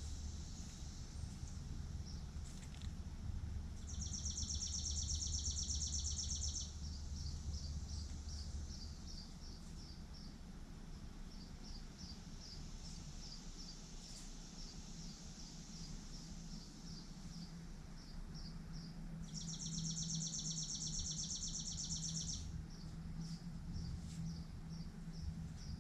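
High-pitched animal calls outdoors. Twice there is a rapid, buzzy trill lasting about three seconds, and between them single high chirps repeat about twice a second. Under them runs a low background rumble.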